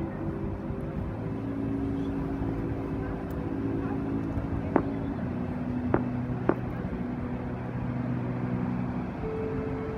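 Wind rumbling on the microphone, with the show's loudspeaker soundtrack underneath as long held low notes that shift every few seconds. Three short sharp clicks come about halfway through.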